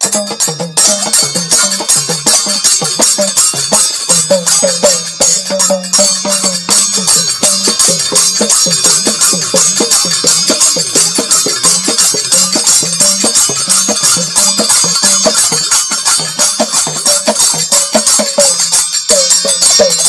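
Hurka (huruka), a small cord-tensioned hourglass drum, played in a fast, steady folk rhythm, with a bright metallic jingling rattle over it.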